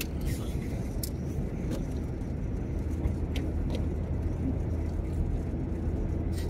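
Steady engine and road noise heard inside the cabin of a Land Rover Discovery towing a caravan: a constant low drone with a few faint clicks.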